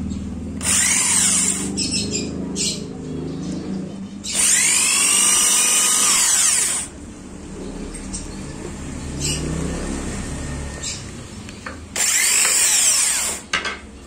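Corded electric drill boring into a hard, dry driftwood branch in three goes: briefly about a second in, longer from about four seconds, and again near the end. Each time the motor's whine climbs as it spins up and drops as it is let off.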